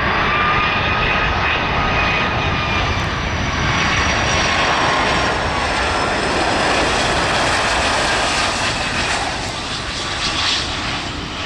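Boeing 757 airliner's jet engines on final approach, touchdown and rollout. A loud steady rush with a thin fan whine that falls slightly in pitch, then a brief louder surge near the end as the plane rolls along the runway.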